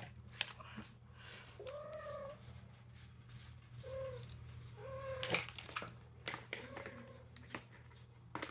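A cat meowing four times, short rising-and-falling mews, with a few light taps and clicks and one sharper click a little past five seconds in.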